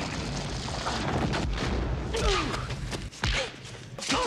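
Film sound effect of a giant rolling boulder: a dense low rumble, built from a recording of a coasting Honda Civic station wagon's rear tyre on a gravel road. About two seconds in comes a short falling wail, then two heavy thuds less than a second apart near the end.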